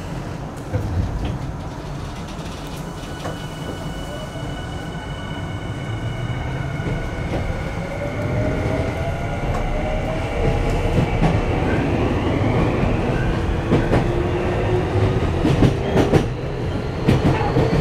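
Tokyu 5050 series electric train accelerating away from a station, heard inside the car. The inverter-driven traction motors whine in several tones that climb steadily in pitch as speed builds, over the rumble of the wheels. Wheel clicks over rail joints come in near the end.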